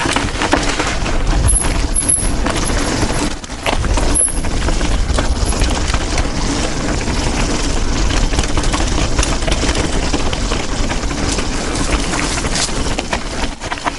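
Mountain bike descending a rough dirt trail: a constant clatter of tyres, chain and suspension over rocks and roots, with wind buffeting the microphone.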